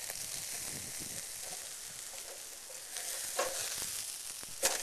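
Wild hog ham sizzling over hot charcoal on a small grill as it is turned over to braise the other side, a steady hiss from fat and juices on the coals. Two knocks, the louder a sharp crack just before the end.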